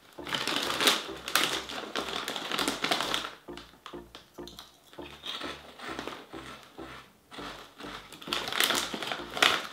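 Crisp snack bag crinkling and rustling as it is handled, mixed with crunchy quinoa chips being bitten and chewed; the crackling is densest in the first three seconds and rises again near the end.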